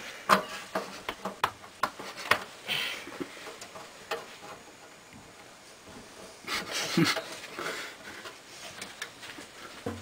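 Hands handling a motherboard inside a steel PC tower case: a quick run of sharp clicks and knocks of board and metal in the first few seconds, then a longer rustling scrape about two-thirds of the way through.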